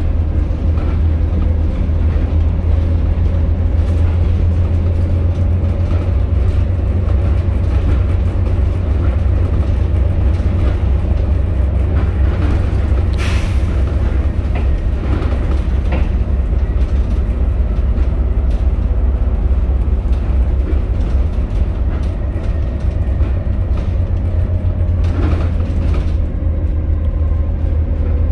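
Volvo B7TL double-decker bus under way, heard from inside the saloon: its diesel engine's steady low drone with road rumble. A brief sharp hiss comes about halfway through.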